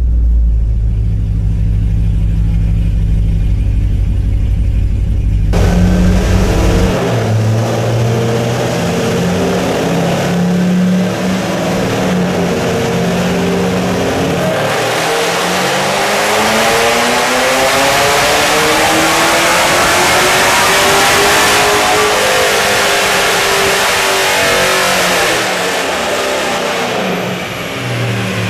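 Supercharged 6.2L L99 V8 of a 2010 Camaro SS idling on a chassis dyno, then brought up under throttle in a dyno pull: engine speed climbs steadily for about eight seconds, then drops back toward idle near the end.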